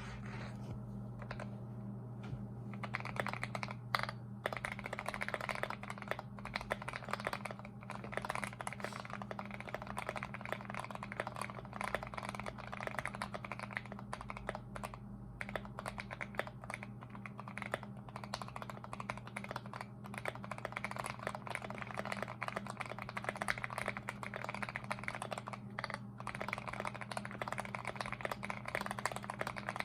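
Fast, continuous typing on a Keychron Q1 mechanical keyboard with Mauve switches, modded with tape, polyfill and a polycarbonate plate. A few single keystrokes come first, then steady rapid typing from about three seconds in, over a steady low hum.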